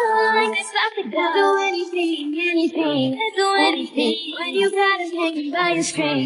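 Female group vocals sung live into headset microphones with the instrumental backing track removed, so the voices sound bare, with no beat or bass under them.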